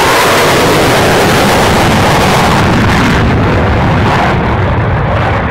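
Loud jet noise from a Eurofighter Typhoon's two EJ200 turbofan engines as the jet flies past and pulls up into a steep climb. The high hiss falls away about three seconds in, leaving a deep rumble.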